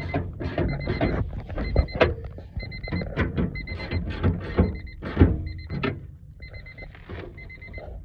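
Honda Civic's electronic warning chime beeping in rapid groups of high pips, a group a little more often than once a second, over irregular knocks and clatter of work on the door; the knocks die down about six seconds in.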